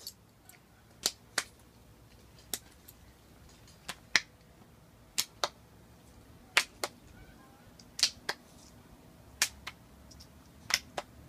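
Sharp hand claps in a pat-a-cake rhythm, mostly in pairs, coming about every one and a half seconds.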